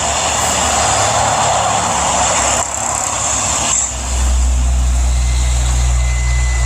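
Steady heavy-truck engine noise that switches on and off abruptly, like an added sound effect, with a deeper rumble coming in about four seconds in.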